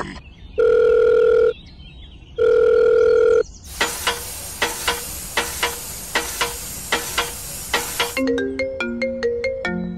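Two steady telephone ring tones, each about a second long with a short gap between them. These are followed by a hiss with a steady ticking about three times a second. Near the end comes a short electronic tune of quick stepped beeps.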